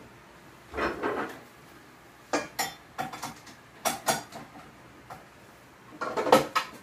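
Dishes and kitchen utensils clinking and knocking on a countertop: a handful of separate short clatters, with a busier cluster near the end.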